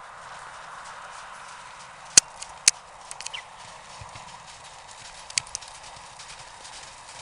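Horses galloping through snow, their hoofbeats a patter of faint ticks over a steady hiss. Sharp knocks stand out twice a little after two seconds and once past five seconds.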